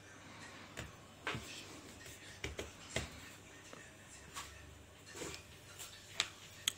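Faint, scattered soft taps and rubbing of hands folding and pressing a thin sheet of starch-dusted dough on a granite countertop, about a dozen light knocks spread irregularly.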